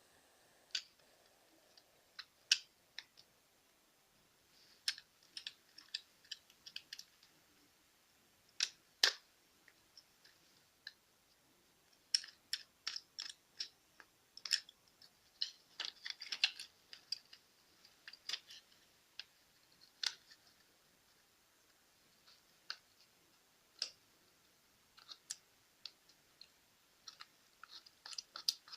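Faint, irregular small clicks and ticks of hands and tools on small plastic and wire parts, as the tube's wires are unwound from the pins of a CFL's circuit board to free the tube.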